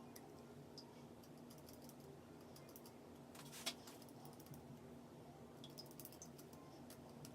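Faint, scattered clicks and snips of scissors cutting the lace of a lace frontal wig, with one louder, sharper sound near the middle.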